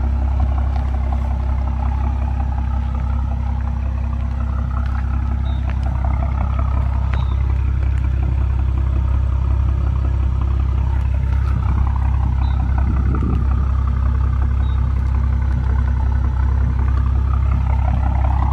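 BMW M340i's turbocharged inline-six idling steadily through a straight-piped exhaust (catted downpipe, rear muffler and valve removed), a loud, even, deep drone from the quad tailpipes.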